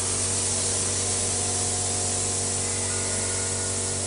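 Electric spray gun spraying melted cocoa butter onto shortbread pastry, a steady loud hiss over a low motor hum.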